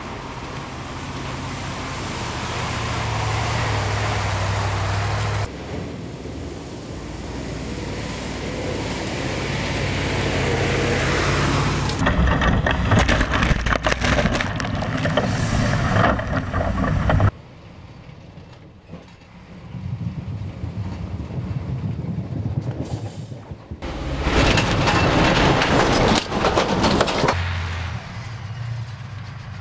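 Heavy off-road military vehicles driving past: a cargo truck and an articulated tracked carrier, diesel engines running under load with tyre and track noise over rough dirt. The sound changes abruptly several times as one shot cuts to the next.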